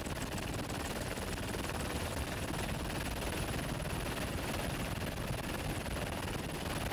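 Helicopter running steadily, its rotor chop and engine noise even and unbroken.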